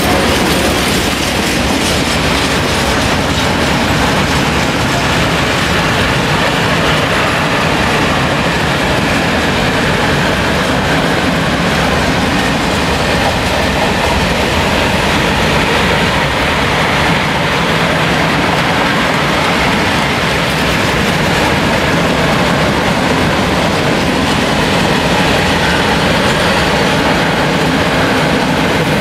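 Freight train of open coal wagons rolling past at speed: a steady rolling noise of steel wheels on the rails.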